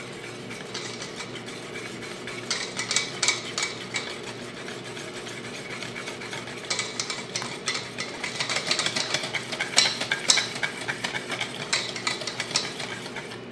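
Wire whisk beating thick gram-flour batter in a steel bowl: rapid clicks and taps of the wires against the bowl in irregular spells, with wet stirring between. A faint steady hum runs underneath.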